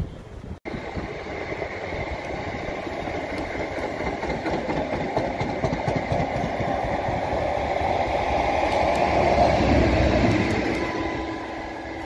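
Electric passenger trains running past on the main line: wheels rumbling and rushing over the rails, building to loudest about ten seconds in and then easing. The sound cuts out briefly just under a second in.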